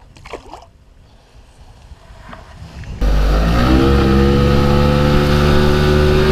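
Boat's outboard motor running under way. It comes in suddenly about three seconds in, rises in pitch for about a second as it speeds up, then holds a steady loud run.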